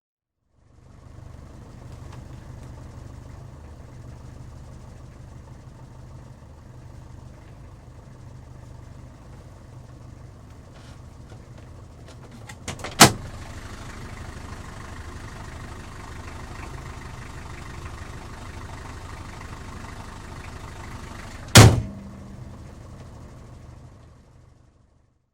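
Taxi cabin ambience heard from inside the car: a steady low engine and road rumble that fades in and out. Two loud, sharp thumps break it, one about halfway through and one near the end, with a few small clicks just before the first.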